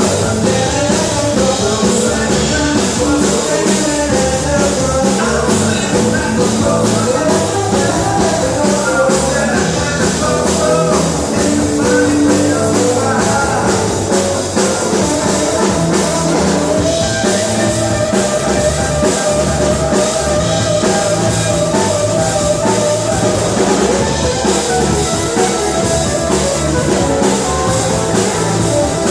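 Rock music with drums, guitar and singing, played loud and steady.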